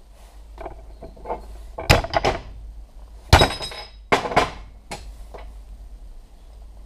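Lump hammer striking a welded cast-aluminium piece clamped in a bench vise, a break test of the weld. About six sharp metallic blows in the middle of the stretch; the loudest, about a third of the way in, rings on briefly.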